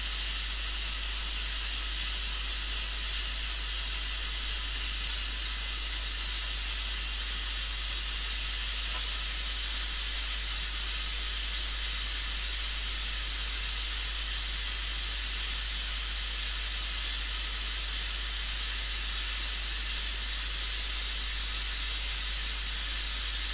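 Continuous white noise test signal for a cross-correlation speed-of-sound measurement: a steady, even hiss, strongest in the treble.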